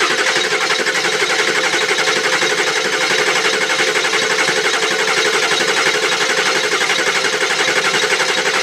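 Ford 7.3 Powerstroke V8 diesel cranking on its starter motor, with a compression gauge in cylinder number eight, in a fast, even rhythm of compression strokes. It sounds really even, with nothing in the cranking to suggest a low cylinder, and the cylinder reads the same as number six.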